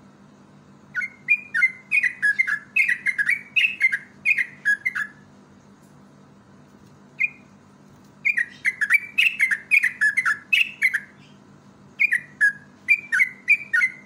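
Yellow-vented bulbul (trucuk) singing: three bursts of quick, bubbly notes that dip in pitch, with a lone note between the first two bursts. A faint steady low hum runs underneath.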